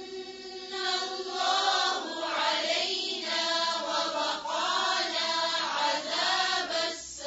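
Several voices reciting a Quran verse together in unison, chanting it in a slow, drawn-out tajweed melody.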